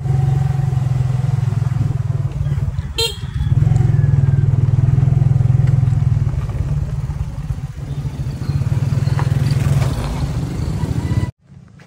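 A small motorcycle running along a road, heard from the pillion seat, with heavy wind rumble on the microphone. A short horn beep comes about three seconds in, and the sound cuts off abruptly near the end.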